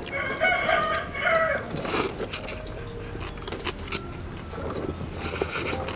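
A rooster crows once, a call of about a second and a half at the start, followed by a few sharp clicks, one louder near four seconds in.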